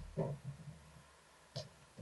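Cats' paws thumping and scrabbling on a wooden floor as they leap and pounce: a quick cluster of soft thumps just after the start and another, sharper landing about a second and a half in.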